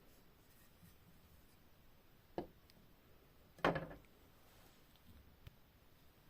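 Two short knocks, like hard objects set down or bumped, a little over a second apart, the second one louder; otherwise quiet.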